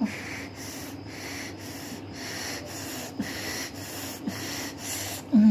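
Rapid, rhythmic heavy breathing close to the microphone, about two breaths a second, with a brief loud groan at the very end.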